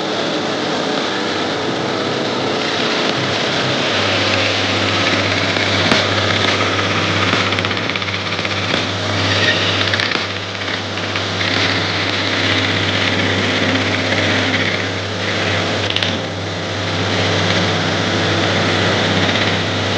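Plywood jigsaw machine running and cutting hard plywood: a steady motor hum under the fast chatter of the reciprocating blade, with a few sharp clicks.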